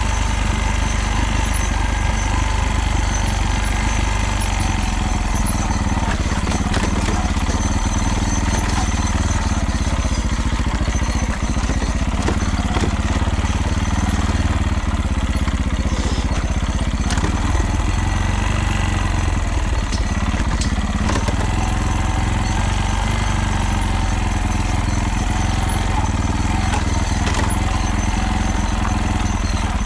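Motorcycle engine running steadily with a rattle whose cause the owner does not know.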